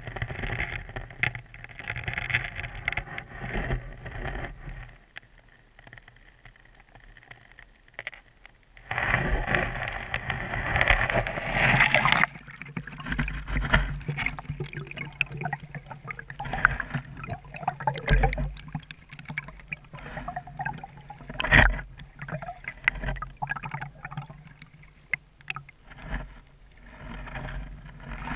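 Creek water rushing and sloshing around a GoPro's waterproof housing held underwater in a shallow stream, heard muffled through the housing, with scattered knocks and scrapes as the housing bumps the stream bed. The rush grows louder for about three seconds starting about nine seconds in, and a single sharp knock comes about twenty-one seconds in.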